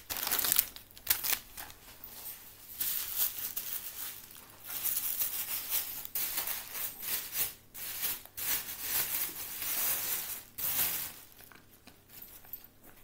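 Wrapping paper being torn and crumpled as a present is unwrapped, in irregular rustling bursts that die down near the end.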